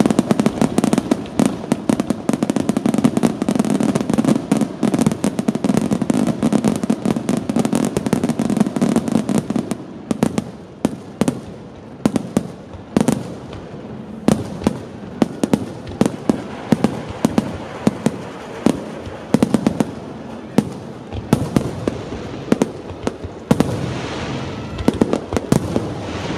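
Fireworks going off. For about the first ten seconds there is a dense, continuous barrage. After that come separate sharp bangs of shells bursting, several a second, which crowd together again near the end.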